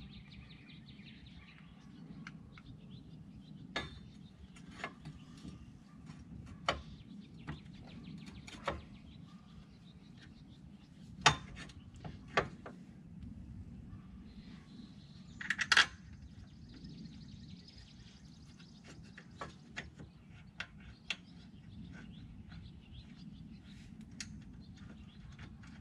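Scattered metallic clicks and clinks of hand tools and brake caliper parts being handled during a brake pad change, over a low steady background hum. The sharpest knocks come about eleven and sixteen seconds in.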